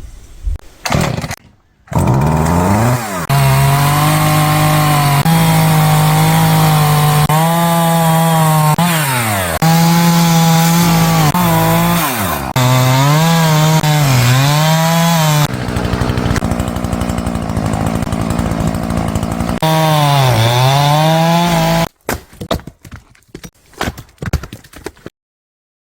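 Chainsaw engine running at high revs while cutting firewood, its pitch dipping and recovering again and again as the chain bogs in the wood. The sound breaks off and resumes abruptly several times. Near the end a few scattered knocks and clatters follow, then it goes silent.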